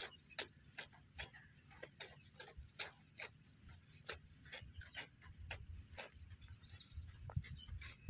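Faint outdoor ambience: irregular sharp clicking animal calls, two or three a second, over a low rumble.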